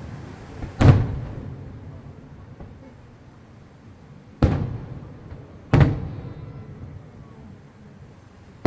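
Aerial firework shells bursting with loud booms: one about a second in, then two more close together around four and a half and six seconds. Each boom trails off in a rolling echo over a second or two, and another boom starts right at the end.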